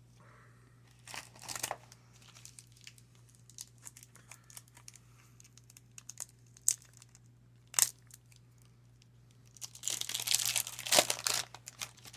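Crinkling and rustling of baseball card packs and cards being handled, with scattered light clicks and a longer, louder stretch of crinkling about ten seconds in.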